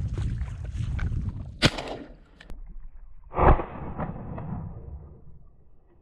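Two shotgun shots at flushed snipe, about two seconds apart; the second is the heavier report, with a short tail. Wind noise rumbles on the microphone before the shots.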